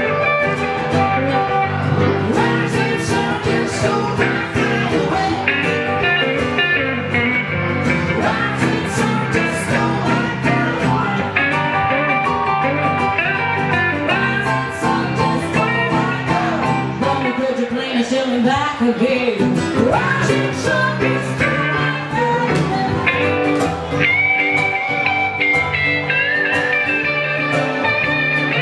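Live blues band playing: electric guitar, acoustic guitar and keyboard, with a woman singing. The bass end drops out for a few seconds about two-thirds of the way through, leaving the guitars.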